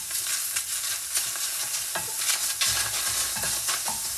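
Wooden spoon stirring and scraping diced onion and tomato around a stainless steel frying pan, with irregular knocks of the spoon against the pan over a light sizzle as the vegetables sauté.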